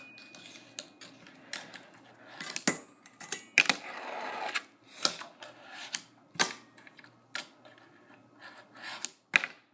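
Fingerboard clacking on a rail: a series of sharp clicks as the board is popped, lands and hits the rail, with a short scraping stretch about four seconds in as it slides or grinds along.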